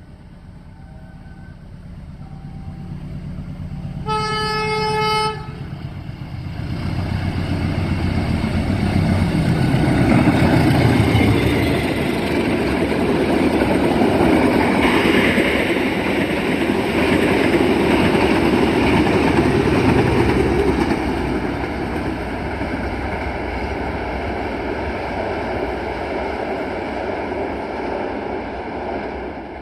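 A CC201 diesel-electric locomotive's air horn gives one short, choked, raspy blast about four seconds in, a horn the uploader suspects has a dirty air line or a faulty diaphragm. The locomotive and its train then pass close by, engine and wheels running loud for about twenty seconds.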